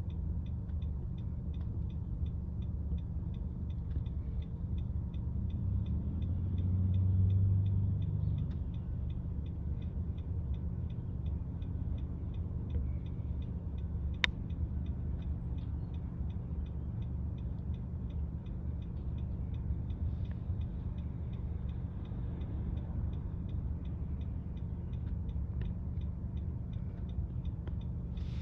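City street noise: a steady low traffic rumble that swells as a vehicle passes about six to eight seconds in. Over it runs a faint, even ticking at a few ticks a second, and one sharp click comes about fourteen seconds in.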